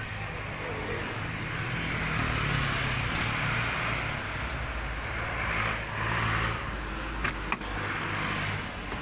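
A vehicle engine running steadily, a low hum with a hiss over it, and two sharp clicks about seven and a half seconds in.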